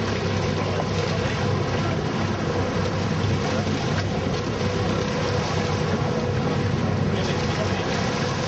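Fishing charter boat's engine running with a steady, even hum, with wind and water noise over it.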